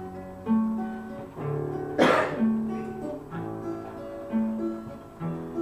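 Acoustic guitar playing the instrumental intro of a folk song, with notes changing about every half second. A sharp, noisy hit about two seconds in is the loudest moment.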